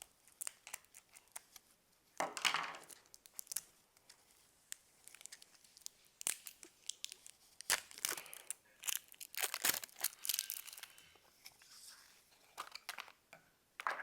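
Toy packaging being torn open and crinkled by hand: scattered sharp clicks and short rustling bursts, loudest about two seconds in and again past the middle.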